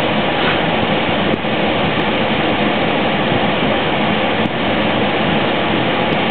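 The minivan's dashboard HVAC blower is pushing air out of the vents in a steady, loud rush while the climate-control self-test cycles through its modes. A few faint clicks come through the rush.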